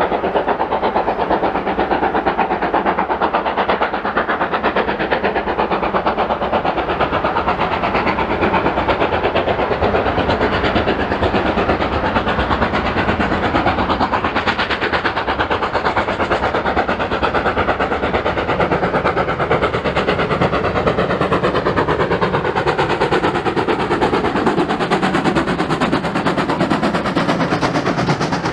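GWR 4100 class Large Prairie 2-6-2 tank engine 4144 working hard with a train of coaches, its chimney exhaust beating in a rapid, even rhythm as it approaches.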